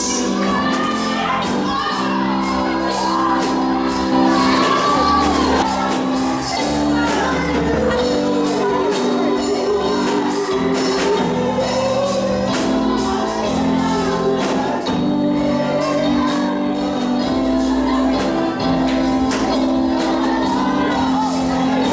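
Live church worship music: held keyboard chords and steady drum and cymbal strokes, with voices singing and calling out over them.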